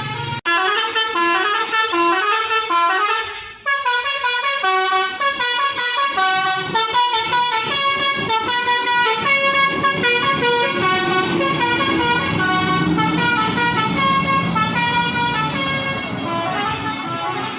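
Basuri musical bus horn playing a tune of held notes stepping up and down in pitch, with two short breaks in the first four seconds.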